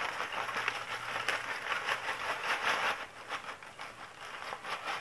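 Paper bag of fries rustling and crinkling as it is shaken by hand, with many quick irregular crackles, to coat the fries with barbecue seasoning powder.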